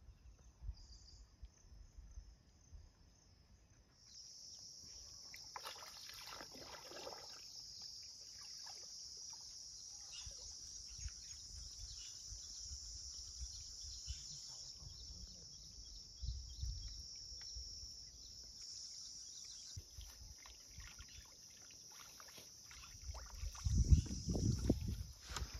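Steady high-pitched insect buzz over a river, with the sloshing and splashing of a man wading waist-deep; the loudest splashing comes near the end as he bends down in the water.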